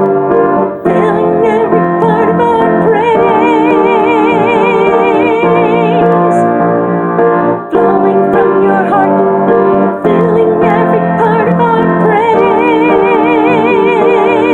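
Worship song music: piano and keyboard accompaniment under a singing voice holding long, wavering notes with vibrato, without recognisable words.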